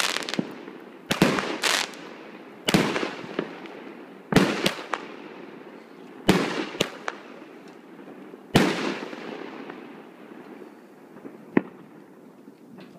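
Aerial fireworks bursting overhead: a loud bang every second and a half to two seconds, some followed quickly by a second, smaller bang, each dying away over about a second. The bangs stop after about nine seconds, with one smaller pop near the end.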